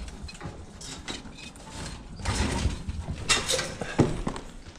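A person scrambling in through a window into a room: scuffing, rustling and scraping, with a few sharp knocks, the clearest about four seconds in.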